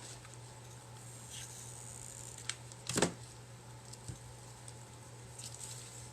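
Small handling sounds of a hot glue gun, rope and clay pot being worked by hand: a few faint clicks and one louder knock about three seconds in, over a steady low hum.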